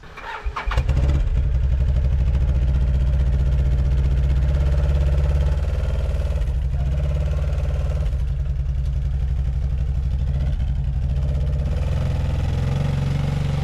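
Can-Am ATV engine revving up and held at steady high revs while it strains to drag a V8 engine block on a chain, its CVT drive belt slipping under the load.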